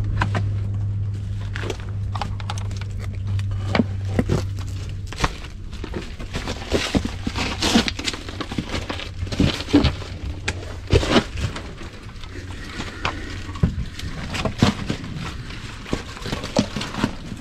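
Footsteps crunching and scraping over loose gravel and rubble, with stones knocking, inside a narrow concrete tunnel where the steps echo. A low steady hum runs underneath, loudest for the first five seconds or so.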